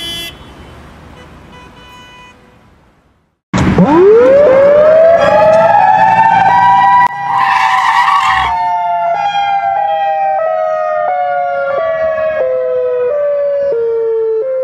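Wind-up warning siren, like a tornado siren: after a moment of silence it starts about three and a half seconds in, rises quickly to a high wail, then slowly falls in pitch. A short burst of hiss sounds over it about halfway through.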